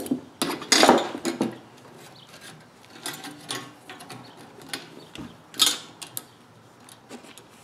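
A small steel band clamp and its bolt being worked around an exhaust header pipe: irregular metal clinks and scrapes, loudest about a second in and again near the middle.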